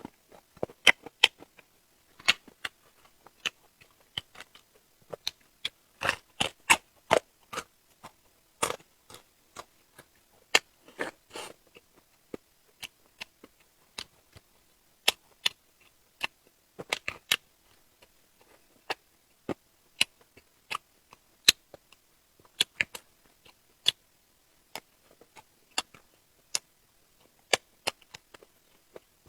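Close-miked eating sounds of a person chewing seafood: irregular crunches, clicks and wet mouth smacks, some in quick clusters.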